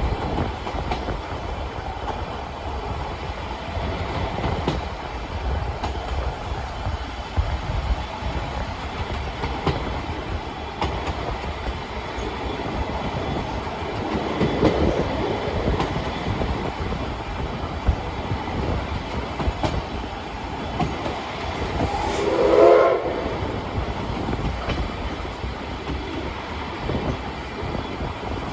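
Old-type passenger coach running along the track, heard from inside: a steady low rumble with the clicks of wheels over rail joints. About 22 seconds in, the train's whistle sounds briefly with several tones at once.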